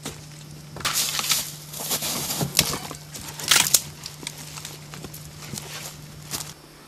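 Irregular crackles and snaps from a small wood campfire as sticks are handled and fed into it, loudest about a second in and again around three and a half seconds.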